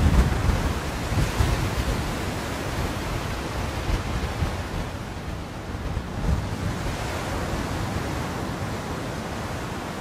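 Sea surf washing onto a sandy beach with wind blowing over the microphone. The low buffeting is heaviest in the first second, then settles into a steady wash.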